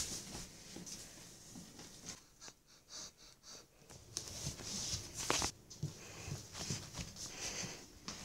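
Breathy rustling close to the microphone, with a few sharp knocks, the loudest about five seconds in.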